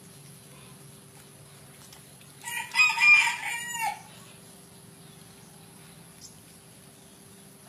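A rooster crows once, a pitched call about a second and a half long that drops in pitch at the end.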